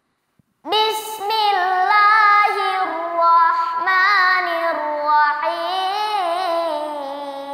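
A young boy chanting a Quran recitation in a melodic style, a high child's voice holding long notes that waver and glide between pitches. It begins after about half a second of silence.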